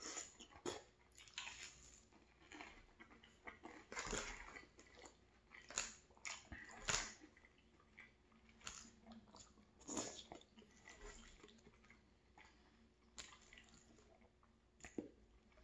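Close-up mouth sounds of eating buttered toast and pulled-pork stew: quiet chewing with a scatter of short crunches.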